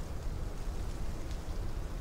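Rain falling steadily with wind, a constant hiss of rain over a low, fluctuating wind rumble.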